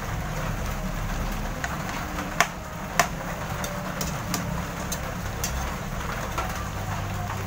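A metal ladle clinking a few times against an aluminium wok of steaming fish-and-vinegar stew, over a steady low rumble from the stove.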